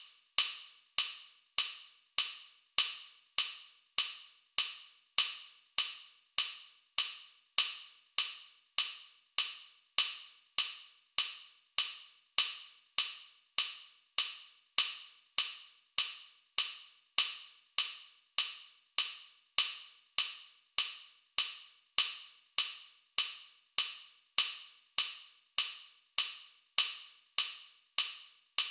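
Metronome click track ticking steadily at 100 beats per minute: short, sharp wood-block-like clicks, just under two a second, evenly spaced.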